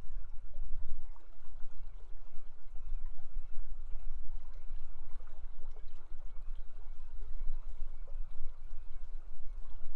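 Brooks River water rushing steadily over rocks, a continuous rush with a deep low rumble.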